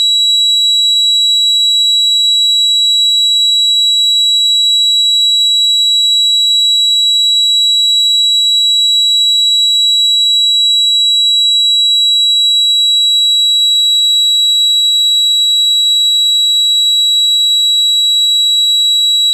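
Tinnitus sound effect: a continuous high-pitched ringing tone, steady and unchanging, over a faint hiss.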